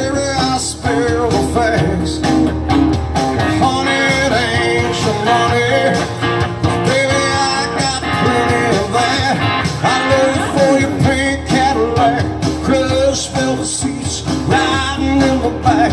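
Live rock-and-roll band music: acoustic guitar and electric guitar playing an instrumental break between sung lines.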